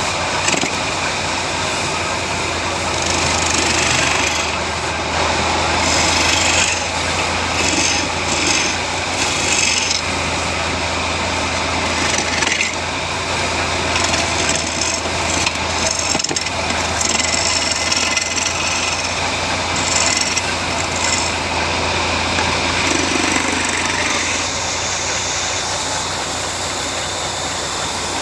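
Motor-driven woodworking machine running with a steady low hum while it cuts wood. The hiss of the cutting swells and fades in repeated passes.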